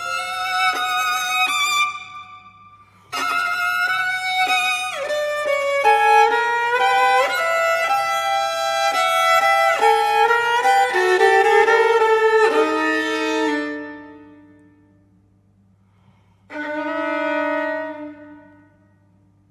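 Solo violin playing in phrases broken by pauses: a brief break about two seconds in, a long phrase that dies away, then after a few seconds' pause a short phrase near the end.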